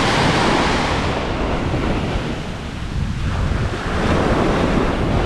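Ocean surf washing onto the beach, with strong wind buffeting the microphone as a low rumble. The wash swells at the start, eases off in the middle and builds again near the end.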